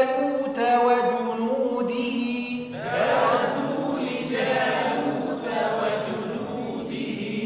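Quran recitation in chanted tajweed style: a man's voice holds long, drawn-out vowels on the phrases being drilled. About three seconds in, several voices join and recite together in unison.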